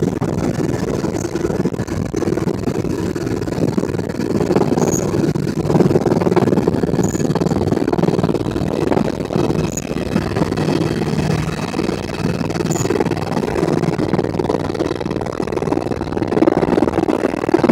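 Helicopter engine and rotor running steadily, a continuous low drone.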